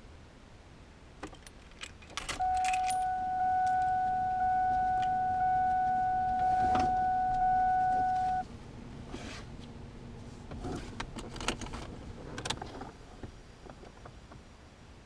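Car keys jangling and clicking in a Ford Mustang's cabin, with a steady electronic warning tone from the car sounding for about six seconds and then cutting off, before the engine is started.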